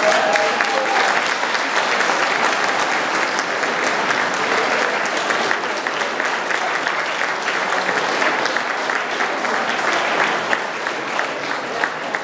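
Audience applauding a choir at the end of its song, a dense spatter of hand claps that thins a little near the end. The choir's last held note dies away in the first second.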